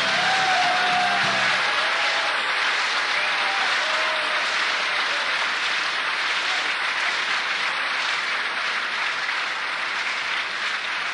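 The last notes of a song with guitar end within the first couple of seconds, giving way to an audience applauding steadily, easing off slightly towards the end.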